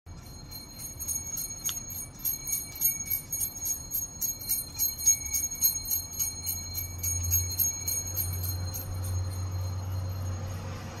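Small handbells on a street vendor's ice cream pushcart jingling in a quick, uneven shaking rhythm that fades out about eight seconds in. A low rumble swells underneath from about six seconds in.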